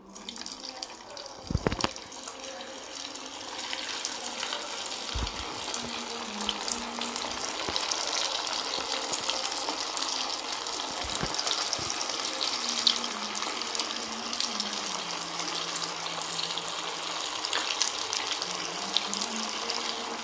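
Bread manchurian pieces of bread and grated vegetables deep-frying in hot oil in a kadai, giving a steady sizzle of bubbling oil. The sizzle builds over the first few seconds as more pieces go in, with a low knock about two seconds in and another about five seconds in.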